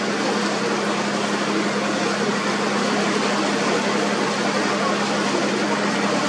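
Motor boat engine running at a steady pitch as a low, even hum, under a steady hiss of water and wind.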